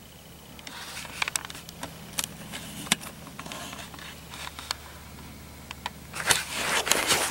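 Sharp, irregular clicks and crackles of the camera being handled and someone shifting in crusty snow, growing into louder crunching near the end.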